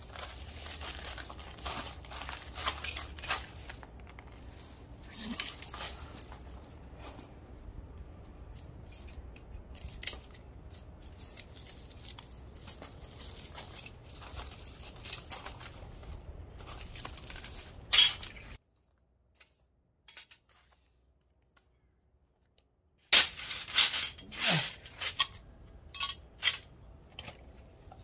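Crumpled aluminium fin from an air-conditioner radiator crinkling and tearing as it is snipped and pulled off the copper tubes with hand snips, with scattered clicks of the snips. Near the end, after a short quiet gap, come several loud, sharp metallic clacks.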